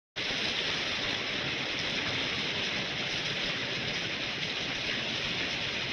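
Steady rain falling on a wet street, an even hiss that cuts in abruptly and holds level.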